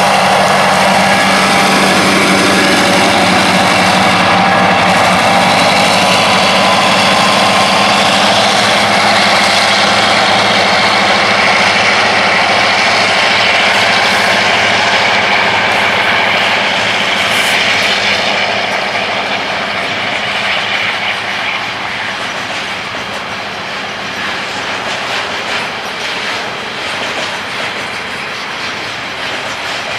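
A diesel locomotive passing, its engine heard in the first few seconds and then fading, followed by a long freight train of container flat wagons rolling by, the wheels clacking over the rail joints. The noise eases off somewhat in the second half.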